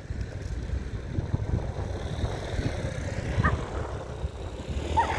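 Low steady rumble of city traffic and wind on the microphone, with a short high yelp from a street dog about three and a half seconds in and another near the end.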